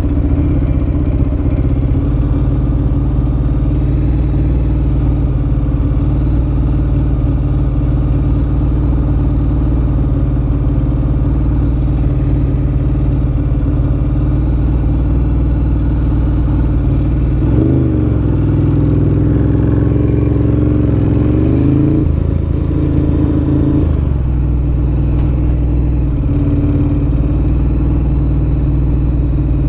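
Ducati Monster 1100 EVO's air-cooled L-twin through a Termignoni exhaust, running steadily at low revs. Roughly two thirds of the way through, the revs rise and fall for a few seconds before settling back to a steady run.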